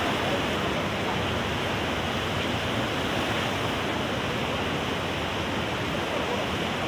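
Fast mountain river rushing over rocks in rapids: a steady, unbroken rush of white water.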